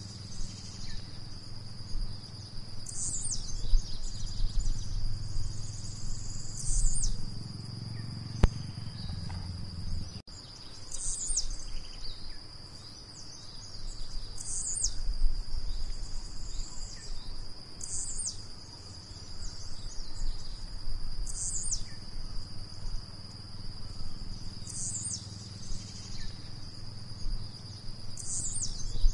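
Blue-black grassquit singing a short, high-pitched note, repeated about every three and a half to four seconds, eight or nine times in all. A steady high insect drone runs underneath, with a low background rumble.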